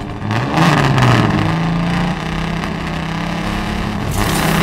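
Animated film sound of Doc Hudson, a 1951 Hudson Hornet, with its engine revving up in the first second and then running at a steady pitch. About four seconds in, a loud rush of noise comes as the car takes off.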